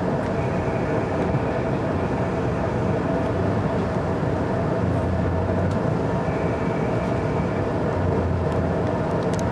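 Steady running noise heard inside a JR 381-series limited-express electric train car as it moves slowly alongside a station platform while drawing into the station. A faint high-pitched tone comes and goes twice, and a few light clicks sound near the end.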